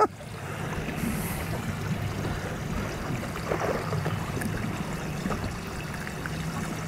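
Water sloshing and lapping against a boat's hull, with a low steady hum underneath.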